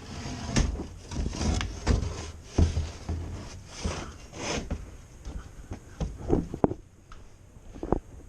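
Irregular knocks, clunks and rattles of parts and tools being handled inside a unit's cabinet, with a few sharp clicks near the end.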